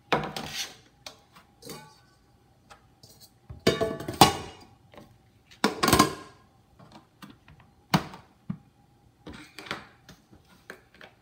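A plastic steamer basket clattering and knocking against a rice cooker's metal inner pot as it is lifted out and set back in, several separate rattles. About eight seconds in, one sharp click as the rice cooker's hinged lid is shut.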